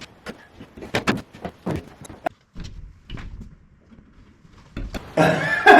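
A series of short, sharp clicks and knocks in the first two seconds, then a man starting to laugh near the end.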